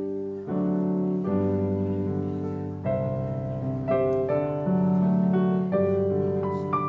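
Piano or keyboard playing sustained chords, changing every second or so.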